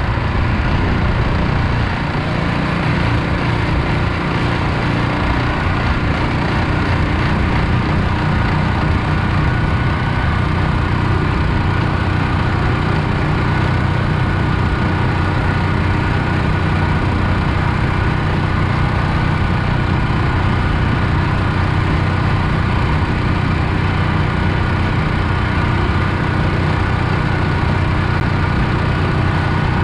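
Predator 420cc 13 hp single-cylinder four-stroke engine of a long-tail mud motor, running steadily without change in pitch.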